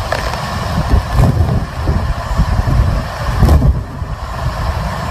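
Hurricane Irma's wind gusting hard and buffeting the microphone with a heavy low rumble. The strongest gusts come about a second in and again around three and a half seconds.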